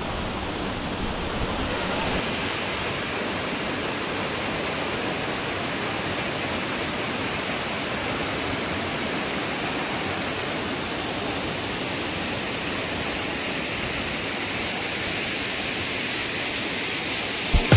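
Lodh Falls, a tall tiered waterfall, rushing steadily down the rock face as an even wash of water noise, turning a little hissier about two seconds in.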